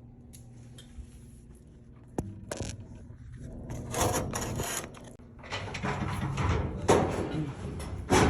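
Handling noise from work on the equipment: a low hum, then two sharp knocks about two seconds in, followed by irregular scraping and rattling with a louder knock near the end.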